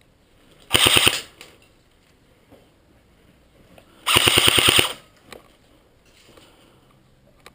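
Airsoft gun firing two rapid full-auto bursts: a short one about a second in, and a longer one of about eight shots near the middle.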